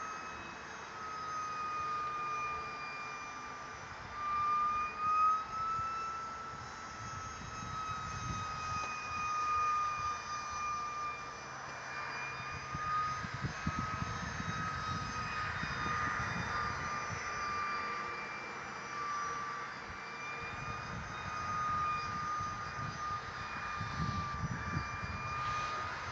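Electric ducted fan of a ParkZone ultra-micro MiG-15 RC jet whining in flight, its high pitch wavering slightly up and down. Wind rumbles on the microphone in gusts now and then.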